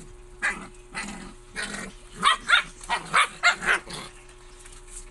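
Husky puppy giving a run of short barks, a few spaced out at first, then a quick cluster of them about two to four seconds in.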